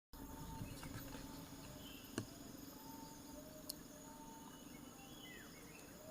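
Faint forest ambience: insects humming steadily and birds giving short whistled notes, one of them a falling whistle near the end. A sharp click about two seconds in and a softer one a second and a half later.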